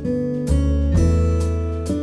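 Background music: strummed acoustic guitar with a low bass line, chords changing about every half second to second.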